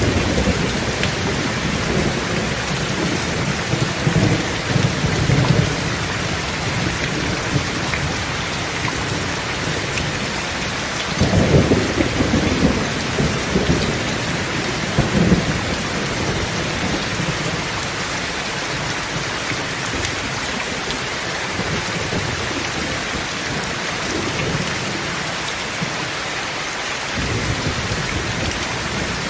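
Steady heavy rain with rolls of thunder rumbling through it: low rumbles a few seconds in, the loudest roll about eleven seconds in, and another a few seconds after that.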